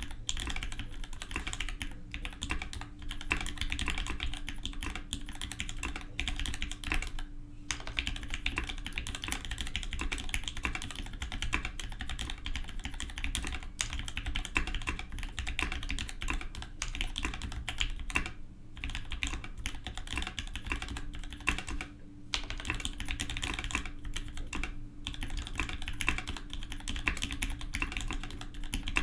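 Fast continuous typing on a Matrix 2.0 mechanical keyboard with lubed Gateron Giant switches and Enjoy PBT keycaps: a dense run of keystroke clacks, broken by a few short pauses.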